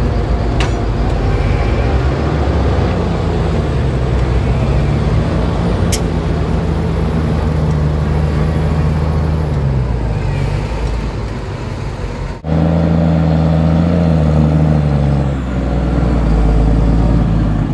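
Large diesel farm tractors running under load while packing a clamp of chopped silage maize, the engine note drifting up and down. The sound breaks off for a moment about twelve seconds in, then a steady engine note resumes.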